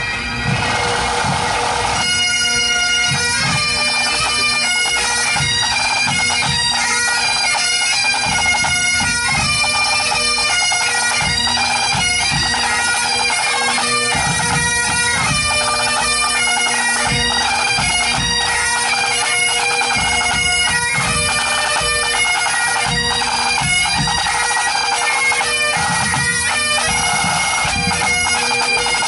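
Highland pipe band playing: bagpipes with their steady drones, and drums beating under them. The pipes' melody comes in about two seconds in.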